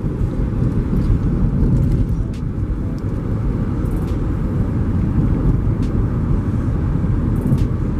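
Steady low road noise inside a moving car, with a few faint ticks.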